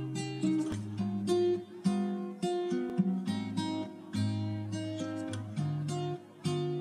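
Background music: a plucked string instrument, likely an acoustic guitar, playing a melody of single notes, several a second.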